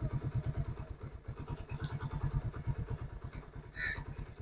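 A vehicle engine idling, with a steady fast low pulsing. A brief high chirp comes near the end.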